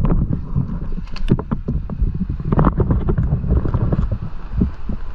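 Wind buffeting the microphone in a steady low rumble, with scattered knocks, clicks and rustles from handling the mesh catch bag and the fish.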